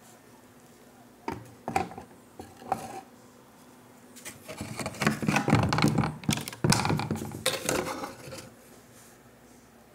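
Rigid plastic and resin parts being handled against a hard surface: a few sharp knocks, then several seconds of crackling and scraping.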